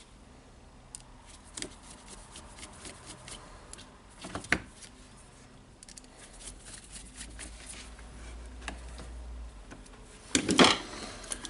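Small clicks and rubbing of hand tools and wires being handled at a workbench, with a sharper click about four and a half seconds in and a louder clatter of clicks near the end.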